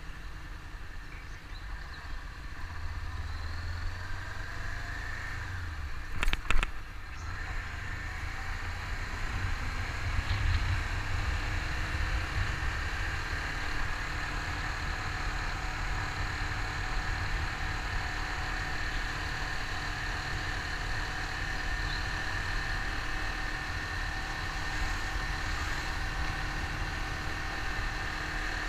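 Honda CBR500R parallel-twin engine running as the motorcycle rides along at low speed, with steady wind and road noise on the microphone. A short thump about six seconds in.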